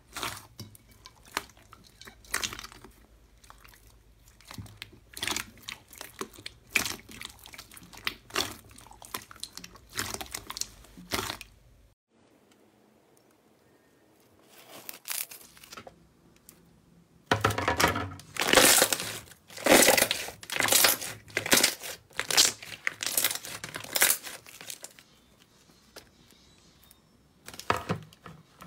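Slime being squeezed, poked and pressed by hand, giving a run of sharp crackles and pops. After a quiet stretch near the middle the crackling comes back louder and denser.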